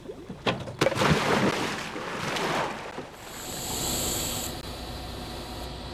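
A scuba diver splashing into the sea about a second in, a rush of water lasting a couple of seconds, then a short burst of hissing bubbles and a steady low underwater rumble.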